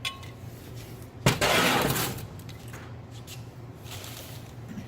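A sharp knock, then about a second of clattering as a metal EGR valve is put down and handled on a hard work surface.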